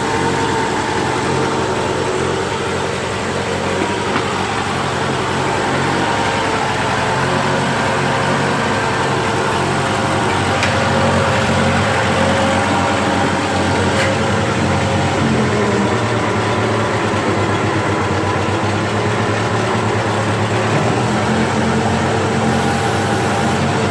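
Case 1830 skid steer's engine running steadily, its pitch rising a little about fifteen seconds in.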